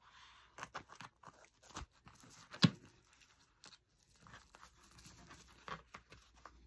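A stiff vinyl pouch being squeezed and handled while fingers work at bending over the metal legs of a fastener inside it: crinkling and scattered small clicks, with one sharp knock a little under three seconds in.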